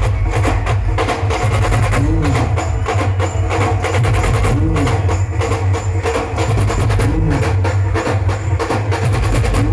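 Dhol-tasha drumming: dhol drums and tasha played together in a fast, dense rhythm over a heavy low beat. A short low rising-and-falling tone repeats about every two and a half seconds.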